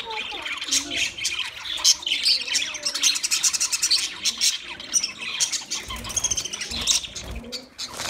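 A flock of budgerigars chattering all at once: a dense, continuous stream of rapid chirps, warbles and squawks from many birds.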